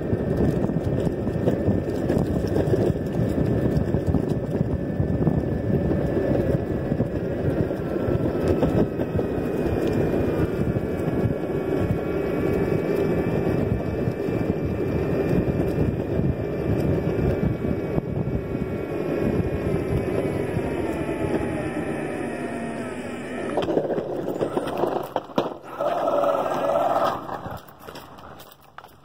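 Electric longboard rolling on a paved trail: a steady rumble of the wheels on asphalt with wind on the microphone, over a faint motor whine that falls in pitch as the board slows. Near the end the rolling noise dies away.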